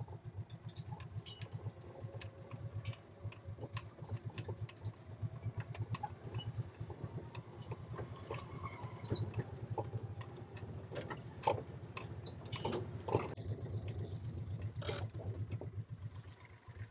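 An engine running steadily at low speed, with scattered clicks and rattles over it.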